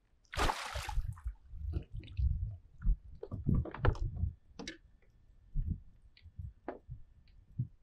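A short splash of water as a landing net holding a northern pike is lifted from the water, then a run of irregular knocks, clicks and low thumps as the net and the fish are handled against a plastic kayak.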